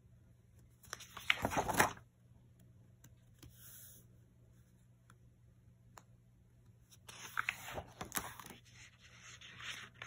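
Sketchbook pages turned by hand, paper rustling and scraping twice: a short burst about a second in and a longer one about seven seconds in, with a softer rustle near the end.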